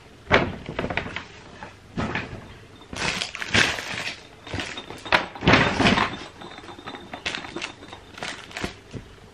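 Close handling noise from toys being picked up and wiped: a sharp knock about a third of a second in, then irregular knocks, scrapes and rustles.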